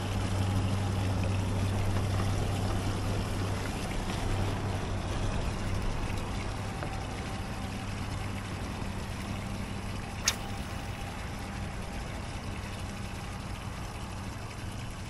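Steady hum of a small motor on a bass boat with a constant rushing, trickling water sound; the hum is strongest in the first few seconds and then fades a little. A single sharp click about ten seconds in.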